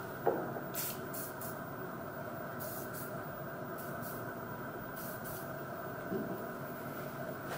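Mechmate CNC router spindle running steadily at 10000 rpm as a 6 mm carbide endmill mills 10 mm S355MC steel plate. Several short hisses from an aerosol spray can sprayed onto the cut break in over the first five seconds, and there are two brief knocks, one just after the start and one near the end.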